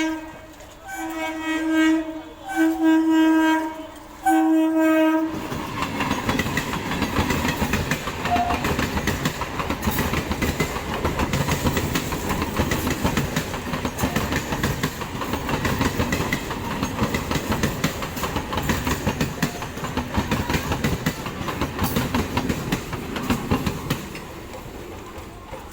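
An Indian local train's horn sounds four or five short blasts. The train then passes close by with a loud, steady rush and rapid clickety-clack of its wheels over the rail joints, which dies away just before the end.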